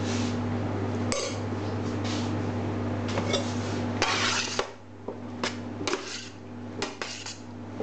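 Slotted metal spatula scraping and clinking against a stainless steel tray as pasta salad is tossed, in repeated strokes with sharp clicks. A steady low hum runs underneath and drops away about four and a half seconds in.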